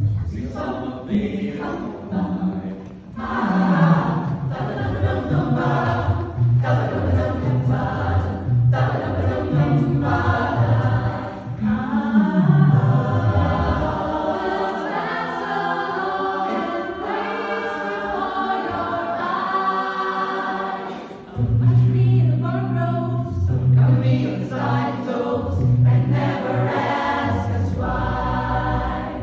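Mixed choir singing in parts, with a strong bass line moving note by note beneath the upper voices, which drops out briefly about two-thirds of the way through and comes back pulsing steadily.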